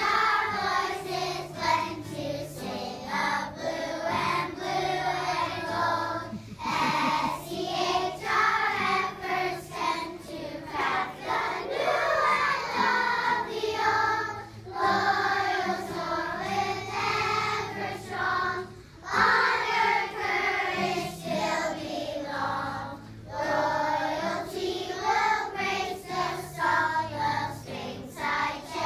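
A large group of young children singing a song together, over low held accompanying notes that change in steps.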